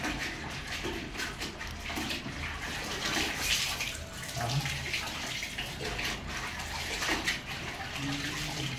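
A cloth being dunked and swished in a plastic bucket of water, then wrung out so water splashes and pours back into the bucket, with irregular sloshing and splashing throughout.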